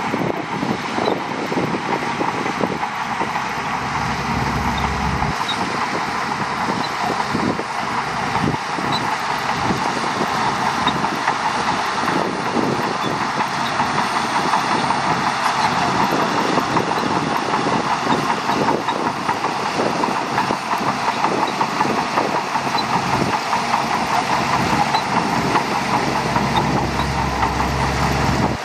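Shantui DH17C2 crawler bulldozer at work: its diesel engine runs steadily under a constant rapid clatter of the steel tracks, growing a little louder partway through.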